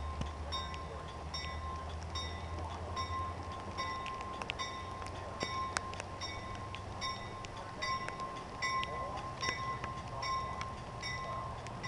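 Railroad grade-crossing bell ringing about twice a second over the low rumble of a passing Metra commuter train, which fades after the first few seconds. Scattered sharp ticks of raindrops hit the car.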